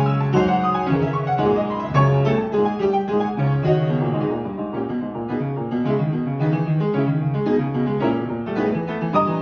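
Young Chang upright piano played with both hands: a quick, continuous run of notes in the right hand over changing bass notes, a classical piece read from the score.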